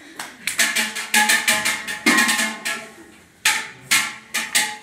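Hand claps in quick runs of sharp strikes, then a few single claps near the end.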